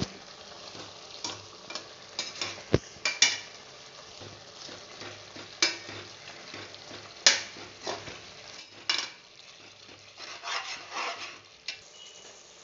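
Perforated steel skimmer stirring and scraping against the pressure cooker's aluminium sides and bottom, giving irregular clinks and scrapes, over the steady sizzle of onion-tomato masala frying in oil and ghee.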